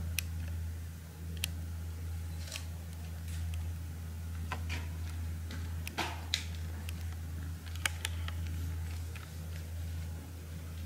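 Handheld camera handling noise in a small room: scattered small clicks and ticks at irregular intervals over a steady low hum.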